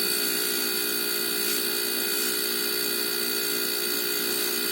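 Air-conditioner compressor rigged as an air compressor, running steadily with a constant hum and a high whine as it pumps up its tank toward about 90 PSI.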